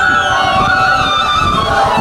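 A large troupe of performers' voices chanting and calling out together in long, held cries, with some cries sliding up and down in pitch.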